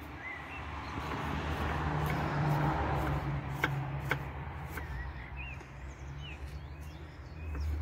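A vehicle passing, a rushing sound with a low rumble that swells to a peak about two to three seconds in and then eases off. Over it come short, repeated bird chirps and two sharp taps of a knife on a wooden cutting board a little before the middle.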